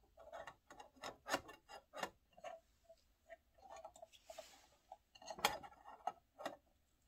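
Irregular light metal clicks and clinks as a camping pot's metal lid and a thermometer probe wire are handled on the pot, each tap ringing briefly. The loudest clink comes about five and a half seconds in.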